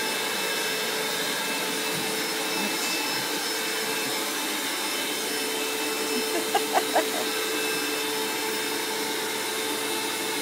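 Vacuum cleaner running steadily, its hose nozzle being drawn through a rough collie's long coat. A little past halfway, three short higher-pitched blips rise above the steady hum.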